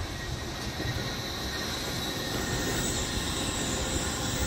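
Wuppertal Schwebebahn suspended monorail car running along its overhead steel rail: a steady rumble and hiss that grows louder over the second half as the car comes closer.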